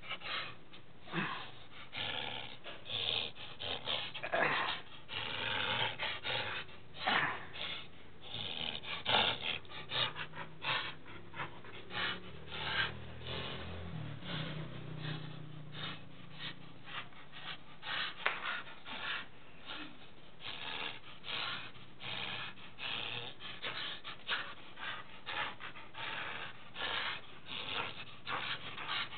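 A dog pulling on a rope tug toy, breathing hard and snorting through its nose in quick, irregular bursts, with the rope rubbing and scuffing. A low rumble runs for several seconds midway.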